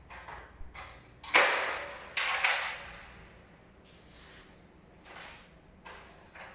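Sheet-metal kitchen cabinet doors and drawers being opened and shut: a run of sliding rushes and knocks, the loudest about a second and a half in and two more just after two seconds, then softer ones.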